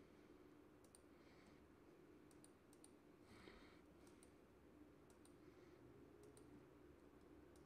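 Near silence, with the session playback not sounding: faint computer mouse clicks, a handful scattered through.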